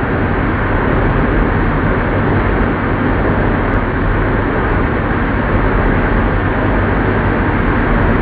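An old lathe running: a steady mechanical rumble with a low motor hum underneath.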